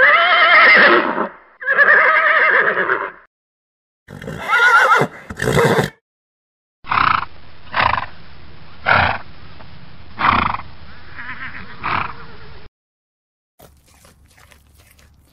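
Horse neighing: two loud, pitched whinnies back to back, then a third wavering call, followed by a run of short calls about once a second over a steady breathy bed. Faint clicks near the end.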